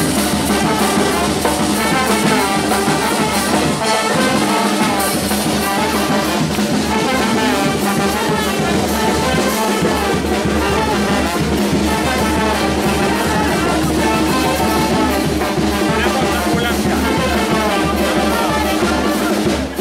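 Charanga street brass band playing a lively tune: trumpets and trombones over a tuba, with a bass drum, cymbal and snare drum keeping a steady beat. The playing stops abruptly at the very end.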